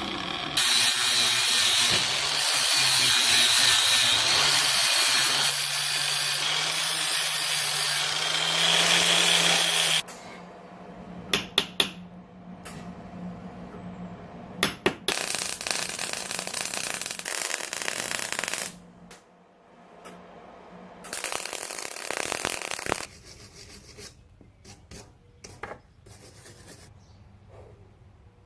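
A loud power tool working the steel shifter mounting bracket, running for about ten seconds and again briefly later, with clicks, clanks and taps of parts being handled between the runs.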